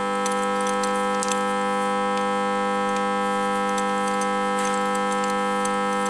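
A steady hum of several pitches, with a few light clicks and taps as the compression gauge is handled at the engine's cylinder head.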